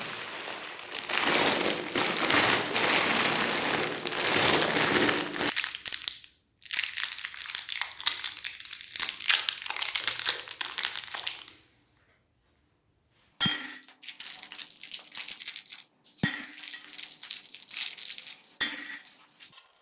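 Crinkling and crunching of candy bars and their wrappers, broken by cuts, then three sharp clinks with a short ring as hard pieces are set down.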